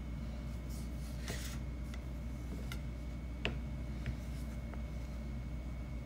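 Quiet room tone with a low steady hum. There is a brief soft rustle about a second in and a few faint light taps after it.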